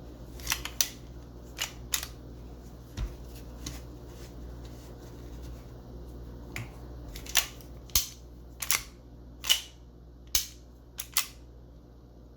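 A reassembled G&G GTP9 gas blowback airsoft pistol being worked by hand: about a dozen sharp, irregular clicks and clacks of its mechanism, some in quick pairs, most of them and the loudest in the second half.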